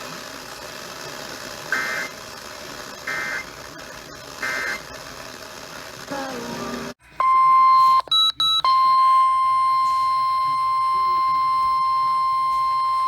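Weather-radio alert signals over a hissy radio background: three short screechy SAME data bursts about 1.4 s apart, the end-of-message code closing the previous warning. After a sudden cut, a loud steady single-pitch warning alarm tone (the NOAA Weather Radio 1050 Hz tone) starts, breaks off briefly about a second in, then holds.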